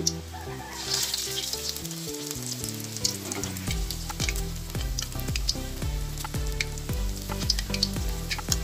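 Battered towel pieces deep-frying in hot oil in a wok, sizzling with many sharp crackles and pops. Background music plays under it and picks up a steady beat partway through.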